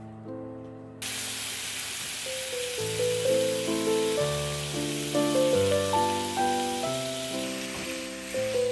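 Slow piano music, its notes struck and fading, with a steady hiss of rain coming in about a second in and running under the notes.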